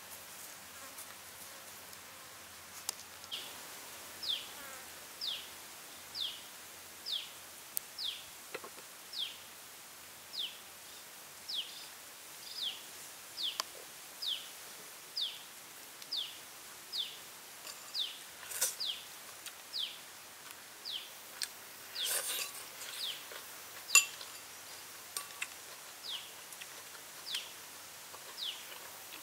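A small forest creature repeats a short, high call that falls in pitch, about once a second. A few sharp clicks come in between, the loudest a little before the end.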